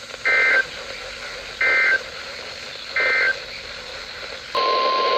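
Emergency Alert System end-of-message code: three short warbling data bursts about a second and a third apart, over radio hiss. About four and a half seconds in, a steady single-pitch NOAA Weather Radio 1050 Hz alert tone begins.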